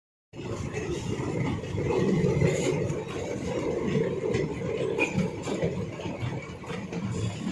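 Steady running noise of a moving passenger train, heard from on board. It cuts in suddenly after a moment of silence.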